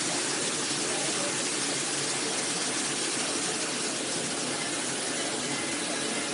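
Steady rushing hiss of fine white polishing media churning in the spinning bowl of a centrifugal disc finisher, with the machine running continuously.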